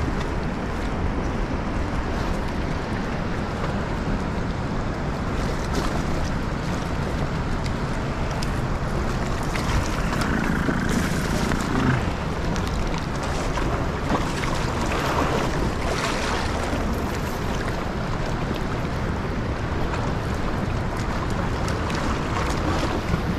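Steady rushing of the river's current, mixed with wind buffeting the microphone.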